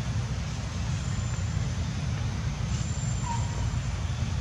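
Steady low rumble with a hiss of outdoor background noise, and no distinct event standing out. A short faint high note comes about three seconds in.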